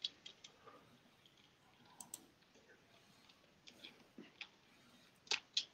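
Quiet, scattered light clicks and taps, a few at a time, with two slightly louder ones near the end.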